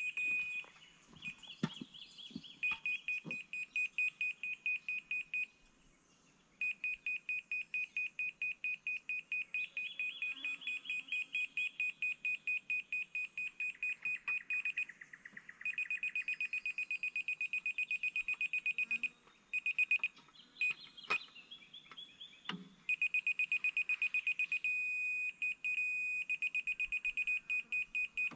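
Laser level receiver on a grade staff beeping rapidly in a high tone, several beeps a second, stopping and restarting as the staff is moved, with a steadier tone near the end. The beep pattern shows whether the staff sits above, below or on the laser's grade.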